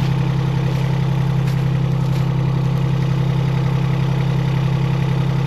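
Mini excavator's diesel engine running steadily at a constant speed, a low even drone.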